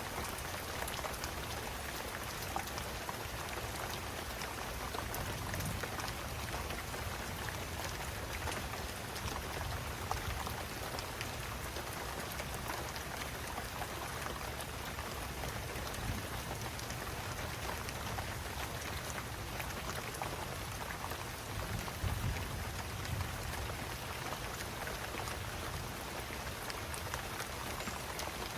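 Steady rain falling, a constant hiss with many individual drops ticking. A brief low rumble swells about three-quarters of the way through.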